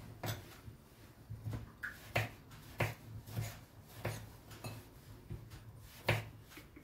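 Kitchen knife slicing seedless green grapes into rounds on a wooden cutting board: about ten light, irregular taps of the blade against the board.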